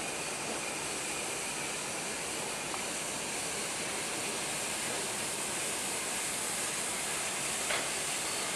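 Steady hiss of steam escaping from steam locomotives, with no exhaust beats, as one moves at walking pace; a faint click near the end.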